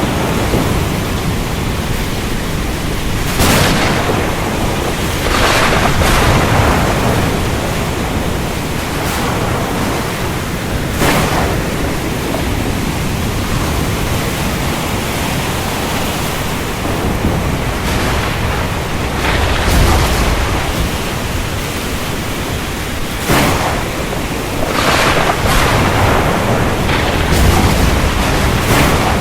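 Steady heavy rain with repeated sudden thunder cracks and rumbles: sharp strikes about three and a half seconds in and at eleven seconds, longer rumbling around six seconds, and a cluster of cracks and rumbles in the last six seconds.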